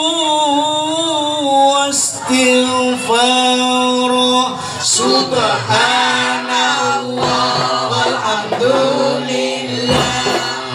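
Arabic devotional singing (sholawat): a man's amplified voice holding long, wavering notes through a PA, with children's voices joining and a few sharp hand-drum strokes.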